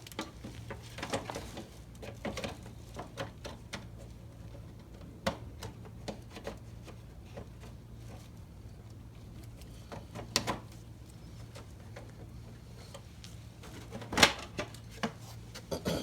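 A motorcycle fairing panel is being handled and fitted back on, making irregular clicks and light knocks, with a louder knock about 14 seconds in, over a steady low hum.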